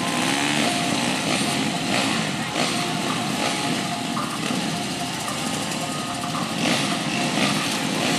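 Many motocross bikes running together on a start line, a dense steady mix of engines idling, with a few short throttle blips.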